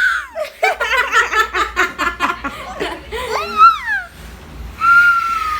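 Laughter in quick short bursts, then a high wailing voice note that rises and falls, and near the end a steady high flute-like note held for about a second, a child imitating the sound of a flute.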